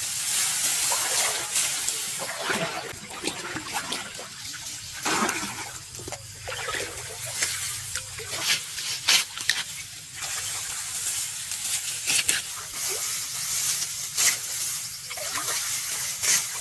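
Water splashing and sloshing in irregular bursts, as from wading and working in a flooded rice field.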